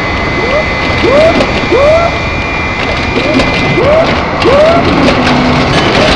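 A dense pile-up of many sound-effect recordings playing at once. A short rising whoop repeats about twice a second, over a steady high tone that stops about two thirds of the way through, with scattered clicks and a general noisy din.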